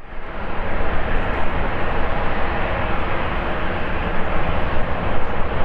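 Boeing 737-800's CFM56-7B turbofan engines running at takeoff power as the airliner begins its takeoff roll: a loud, steady noise that cuts in abruptly and holds level.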